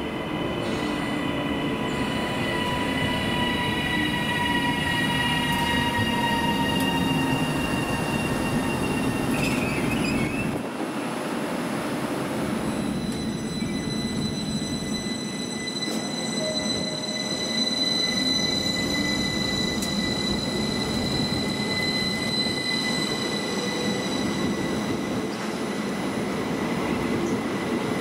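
Electric multiple-unit trains running along a platform. First a class 331 electric unit passes with a high traction whine that drops slightly in pitch. About ten seconds in the sound changes to a class 333 electric unit, whose steady high whine carries on alongside the running noise of the carriages.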